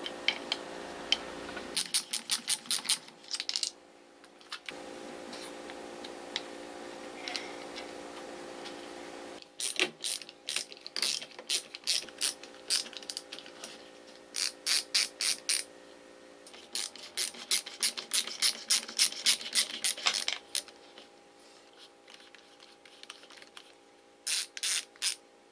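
A hand ratchet driver clicking as it turns screws out of a metal drill body. It goes in several runs of rapid clicks with short pauses between them.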